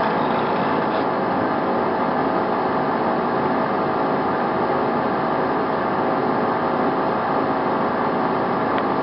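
Hyd-Mech H-12A horizontal band saw running steadily, its blade cutting through rectangular metal tubing with an even machine noise.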